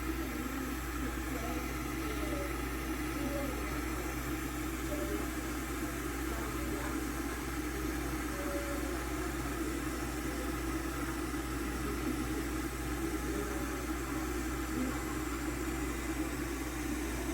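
Electric tea kettle heating water toward the boil: a steady rumble and hiss from the heating element and the water.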